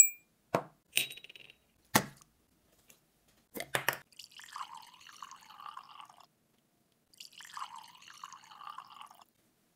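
A few sharp glass clinks and taps as a glass perfume bottle and a metal funnel are set in place, one of them ringing briefly. Then liquid trickles and gurgles into the glass bottle in two stretches of about two seconds each.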